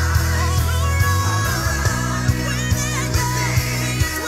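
Gospel music for a worship dance: a sung melody over a heavy bass line and a steady beat.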